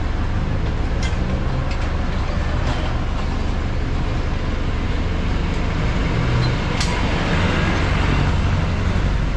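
Steady city-street traffic noise with a deep low rumble, and a single short click about seven seconds in.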